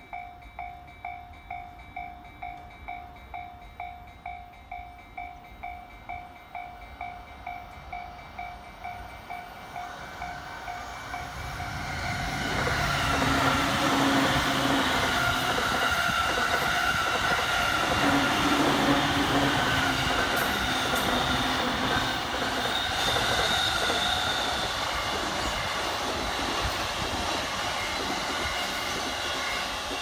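Japanese level-crossing warning bell ringing about twice a second. About twelve seconds in, JR E231 and E233 electric commuter trains pass close by with loud wheel-on-rail rumble and motor hum, drowning out the bell.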